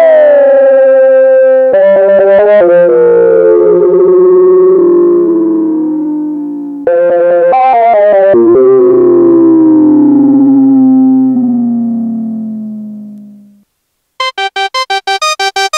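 Korg Monologue monophonic analog synthesizer playing a sustained patch whose held notes slide slowly downward in pitch, broken by two quick runs of notes. The sound fades out, and near the end a new, brighter line of fast, short, evenly repeated sequenced notes begins.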